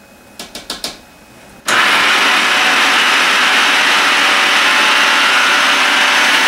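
A few clicks, then about two seconds in a small electric food processor switches on and runs steadily at full speed, blending soaked cashews, butternut squash and coconut milk into a smooth cheese-style sauce.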